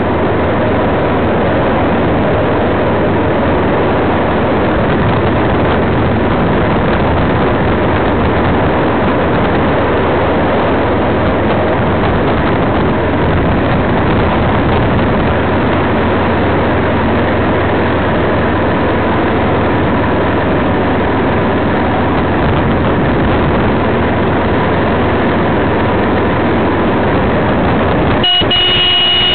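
Loud, steady wind noise buffeting the microphone of a camera riding on a road bike at speed. Near the end a brief high-pitched tone cuts through.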